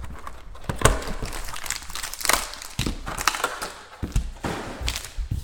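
Plastic wrapping crinkling and tearing in irregular bursts, with a few light knocks, as a sealed box of football trading cards is unwrapped and opened.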